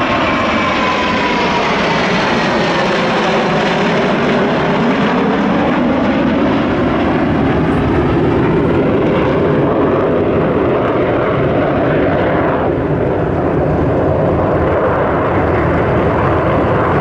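Formation of KAI T-50B Golden Eagle jets, each with a single General Electric F404 turbofan, flying past. A loud, steady jet roar runs throughout, with a falling whine in the first few seconds. About twelve seconds in, the high end of the sound drops away.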